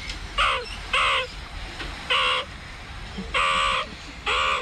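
Recorded meerkat calls played back through a smartphone speaker: about five short calls at irregular intervals, one a little longer than the rest.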